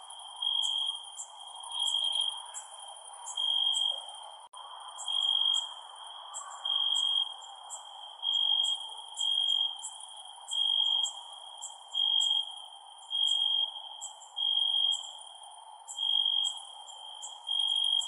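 Crickets chirping at night: a clear, steady chirp repeating about once every second and a half, over a chorus of shorter, higher chirps and a soft steady background hiss.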